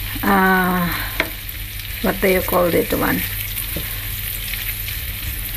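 Boiled potato wedges frying in melted butter in a nonstick pan, sizzling steadily while a wooden spatula stirs and scrapes them, with a few light clicks of the spatula against the pan. Short murmurs of a voice come about half a second in and again around two to three seconds in.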